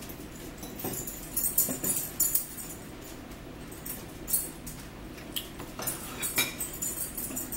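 Drinking and eating at a table: slurping through a straw from a plastic cup, with short clicks and clinks of utensils on dishes, in two spells of crackly, high-pitched noise.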